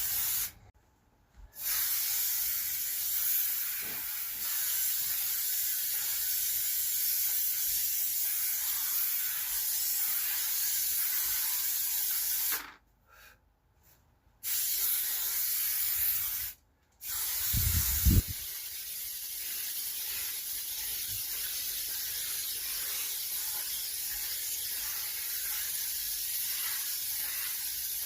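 Aerosol can of contact spray adhesive hissing in long bursts, cutting off briefly a few times as the nozzle is released. A short loud thump comes about two-thirds of the way through, followed by a quieter, steadier hiss.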